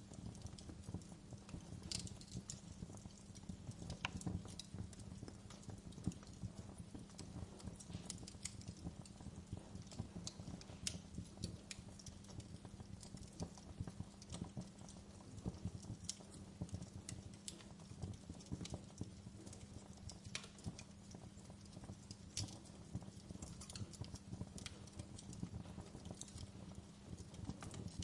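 Fire in a fireplace crackling, with irregular sharp pops and snaps over a dense low crackle. A faint steady low hum runs underneath.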